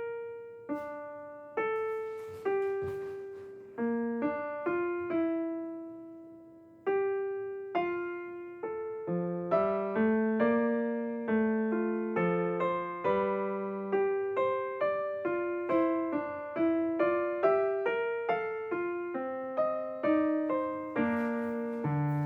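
Solo piano music: a slow melody of single struck notes that ring and fade, growing busier with more notes from about seven seconds in.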